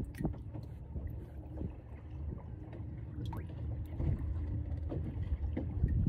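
Wind rumbling on the microphone, with scattered small clicks and taps from hands handling a small item.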